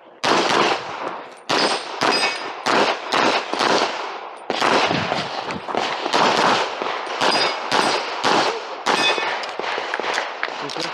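Rapid pistol fire in a timed practical shooting (IPSC) stage run, heard from the shooter's position: a long string of sharp shots, many in quick pairs and runs, broken by short pauses about a second and four and a half seconds in.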